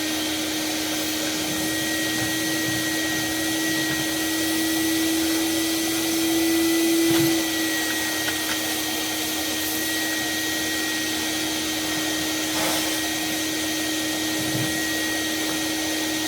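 Shop vacuum running steadily with a constant motor whine, its pitch and level rising slightly for a few seconds in the middle, while soot and scale are sucked out of an oil boiler's flue passages. A few faint knocks from the tools can be heard.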